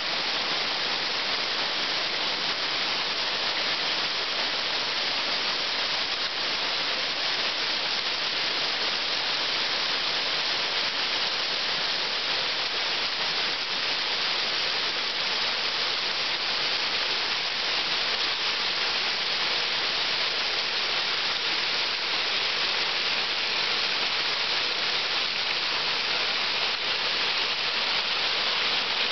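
Small brook waterfall cascading over stepped rock ledges: a steady, unbroken rush of falling water.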